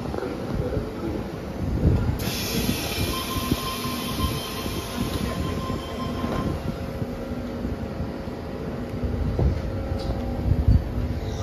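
Sydney suburban electric train at the platform, with a sudden burst of high squealing and hiss about two seconds in that fades over the next few seconds, over a steady low hum.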